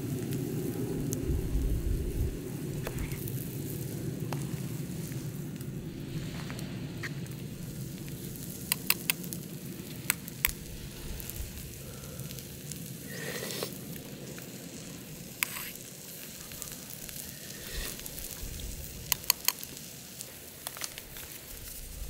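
Food cooking over a Yoler twig-burning wood stove: a steady sizzle and simmer from the broth pot and the egg pan, louder in the first few seconds, with a few sharp crackles from the burning wood.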